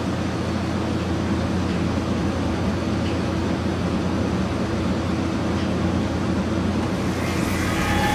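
Steady low machine drone with no break. Near the end a shimmering high tone sets in: a sci-fi transporter beam sound effect.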